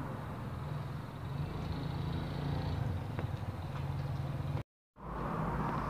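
A steady low mechanical hum in the background, with a faint click about three seconds in as small wire connectors are pushed onto the welder's circuit boards. The sound cuts out for a moment near the end.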